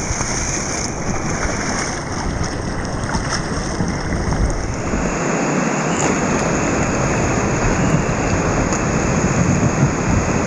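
River rapids rushing steadily, whitewater pouring over and around rocks.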